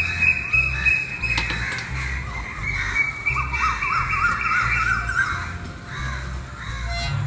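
Birds chirping and crows cawing, over background music with a repeating low bass pattern.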